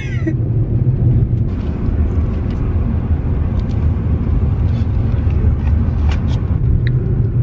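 Steady low rumble of road and engine noise heard inside a moving car's cabin, with a few light clicks.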